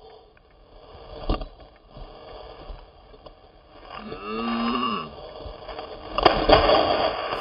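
Skis plowing through deep powder snow, a hissing rush of snow with a sharp thump about a second in and a louder burst of snow noise near the end as the skier lands in the powder. A short whoop rises and falls about four seconds in.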